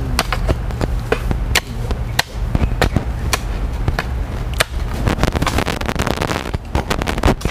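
Hoes chopping into packed soil and stones while a trench is dug along a row of wooden stakes, a string of sharp, irregular strikes a few times a second over a steady low rumble.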